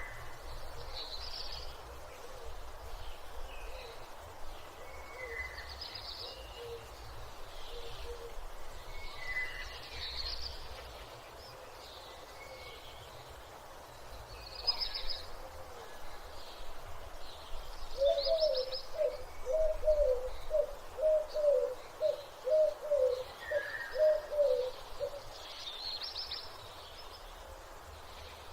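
Morning bird ambience: several small birds chirping and whistling in short scattered phrases. In the second half a lower-pitched call repeats about a dozen times, roughly two notes a second, over a faint low background rumble.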